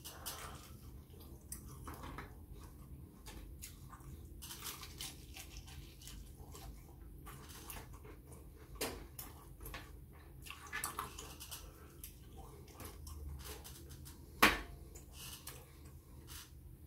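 A person eating fried chicken close to the microphone: chewing and biting, with many small clicks and crackles from mouth and fingers. One sharp knock stands out near the end.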